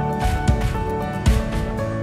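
Background music: held tones over a low beat.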